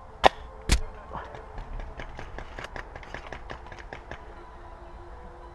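Two sharp airsoft gun shots about half a second apart, then a couple of seconds of fainter rapid clicks of airsoft fire.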